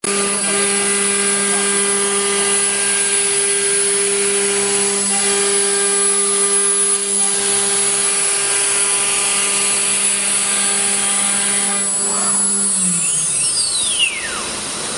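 9 kW HSD spindle of an ATC CNC wood router running with a steady high whine while it routes grooves in a wood panel. About two-thirds of the way through the whine begins to fall, and near the end the pitch sweeps down as the spindle winds down.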